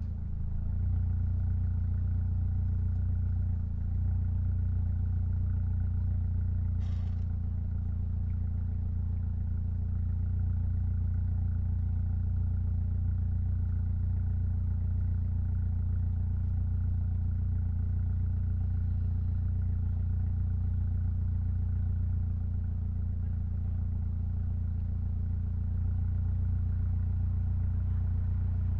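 Mitsubishi Lancer Evolution X's turbocharged 2.0-litre four-cylinder engine running at a steady speed, a deep, even drone with no revving. There is a brief dip about four seconds in and a short click about seven seconds in.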